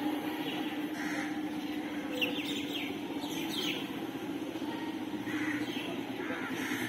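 Birds chirping briefly a few times in the background, about two and three and a half seconds in, over a steady low hum.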